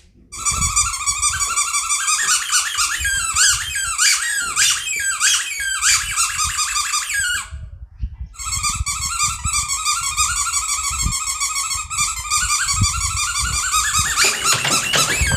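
Noise-making toy ball giving off a loud, high squealing tone whose pitch wavers up and down. It breaks off for about a second halfway through, then carries on at a steadier pitch.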